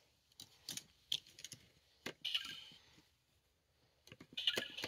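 Faint, scattered light clicks and rustles of handling, with a short scrape about two seconds in. Just before the end, electronic beeping tones from a Lego Mario figure start up.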